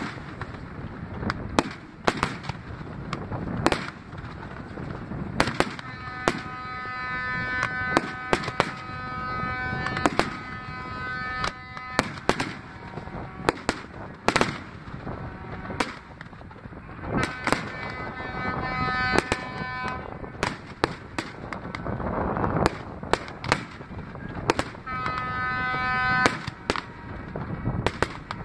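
Aerial fireworks display: a rapid, irregular series of shell bursts and bangs, with wind buffeting the phone's microphone. Long steady pitched tones sound three times, starting about six, seventeen and twenty-five seconds in.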